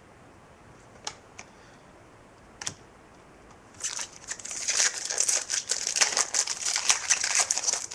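A few light clicks of card handling, then, from about halfway in, loud, continuous crinkling of a trading-card pack's foil wrapper being handled and torn open.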